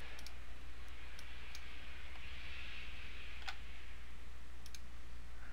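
A few separate computer mouse clicks spaced out over several seconds, over a steady low electrical hum.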